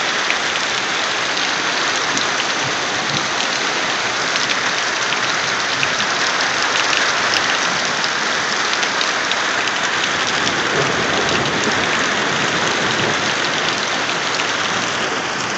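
Heavy rain pouring steadily, with many sharp ticks of individual drops striking close by.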